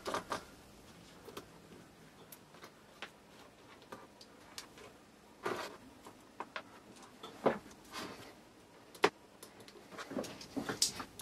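Scattered light clicks and taps of handling noise as a small brushless motor and its wires are fitted onto a tricopter's rear motor mount, with one sharper click about nine seconds in and a few quick taps near the end.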